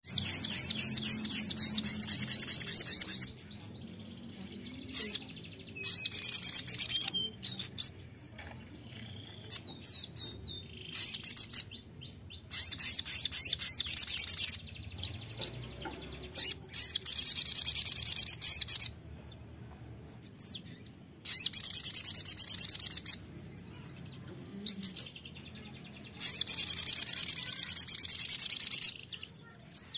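Sogon sunbird singing. Its song comes in about six bursts of rapid, high-pitched trilling notes, each a couple of seconds long, repeated every few seconds with softer chirps between.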